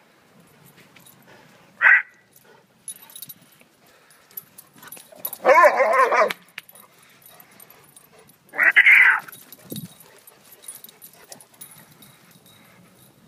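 Great Dane puppies calling out while they play-fight: a short yip about two seconds in, a wavering cry about a second long near the middle, and a shorter high yelp about nine seconds in.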